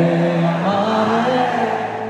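Live band music: a sung melody wavering over held chords.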